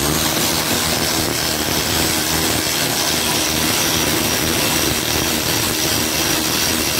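Old cordless electric ratchet running steadily, spinning loose the 13 mm nuts on a strut mount atop the strut tower.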